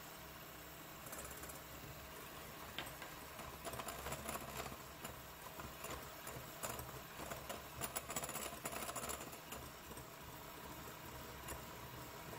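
KitchenAid hand mixer running steadily, its wire beaters whipping egg whites and sugar into French meringue in a glass bowl. From about a second in until near the end there is irregular clicking and rattling as the beaters knock against the bowl.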